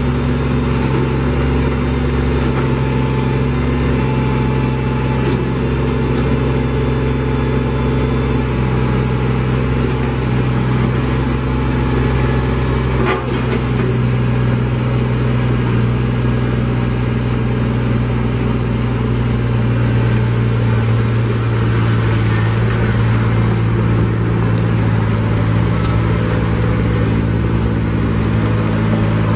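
Kubota BX25D compact tractor's three-cylinder diesel engine running steadily, with a slight change in engine speed about halfway through and a brief click near the middle.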